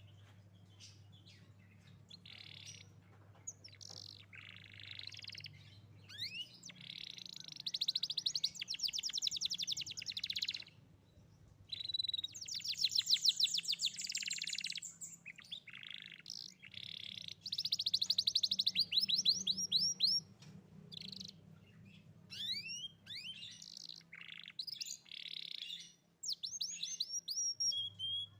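Young domestic canary singing: phrases of rapid rolling trills and quick sweeping whistled notes, broken by short pauses, with a faint steady low hum underneath.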